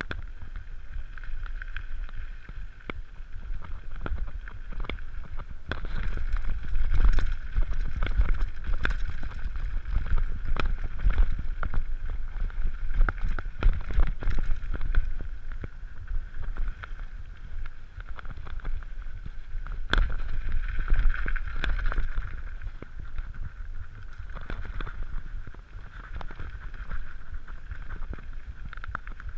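Mountain bike riding fast down a dirt and gravel trail: wind buffeting the microphone as a steady low rumble, with the bike and camera rattling and knocking over bumps throughout, busiest from about six seconds in.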